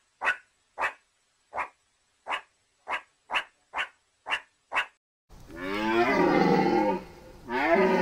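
A meerkat giving short, sharp barking calls, about two a second. From about five seconds in come two long, low calls from a deer, each bending up and down in pitch.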